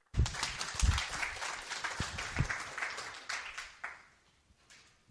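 Audience applauding, fading out about four seconds in, with a few low thumps underneath.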